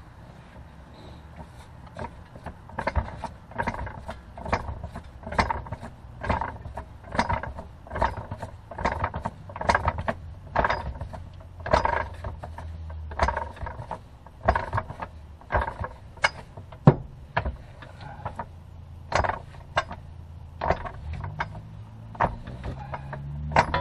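Hydraulic floor jack being pumped by hand to raise a car's transmission: a clicking creak with each stroke of the handle, a bit more than one stroke a second, over a steady low hum.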